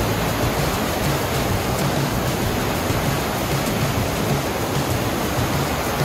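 Fast whitewater rapids rushing over rocks, a steady unbroken roar of water.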